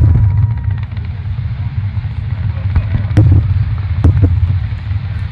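Fireworks display: aerial shells bursting with sharp bangs, a loud one at the start and a few more about three and four seconds in, over a continuous low rumble.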